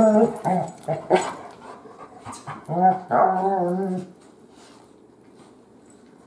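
A dog making a run of pitched, whining growls in rough play, the last and longest about three seconds in, stopping about four seconds in. The noises are play, not aggression.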